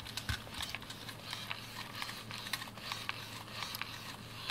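Faint, irregular small clicks and rustles from hands holding and handling a Furby Boom Crystal toy.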